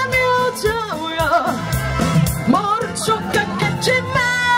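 A singer performing a Korean-language song over backing music, holding a long note near the end.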